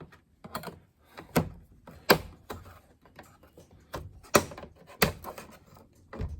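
Black plastic sunroof trim ring being pried around its edge: a series of irregular sharp plastic clicks and snaps as its hidden clips work loose, the loudest about two seconds in.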